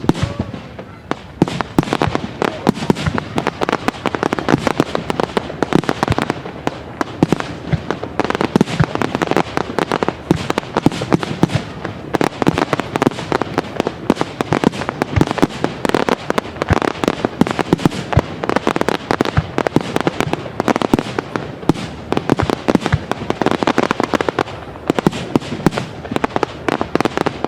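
Aerial fireworks display in full barrage: rapid, overlapping bangs and crackles, many a second, without a break.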